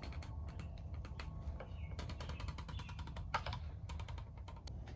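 Rebound damping adjuster on a Yamaha WR250R front fork being turned from its hardest setting toward softest, giving quick runs of small detent clicks, several a second. The clicks are counted to set the damping. A low steady rumble sits underneath.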